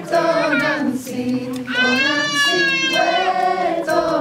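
Group of voices singing a ritual song in long held notes, with a higher sustained line entering about two seconds in.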